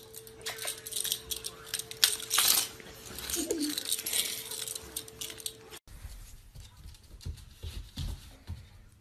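Rapid light clicking and jingling from a black puppy moving about a hard floor with a small object in its mouth, over a steady hum. About six seconds in, these sounds cut off and soft low thumps follow.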